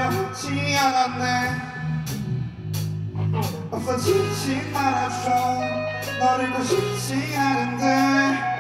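Live rock band playing: electric guitars over sustained electric bass notes and a drum kit with regular cymbal and snare hits.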